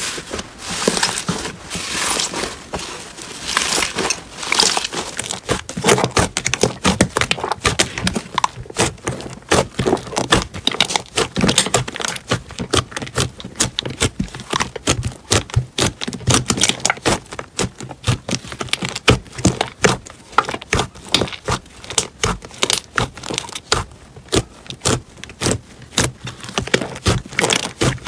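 Slime being squeezed and pressed by hand: a fast, irregular run of small sticky clicks and pops.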